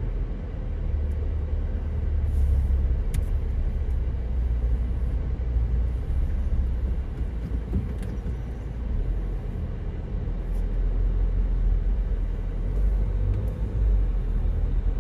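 A steady, deep rumble whose loudness rises and falls slightly, with a few faint ticks over it.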